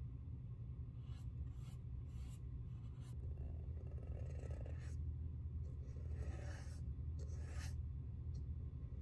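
Fine artist's brush dabbing and stroking paint onto smooth white leather: a series of faint, short, scratchy brush strokes, over a steady low hum.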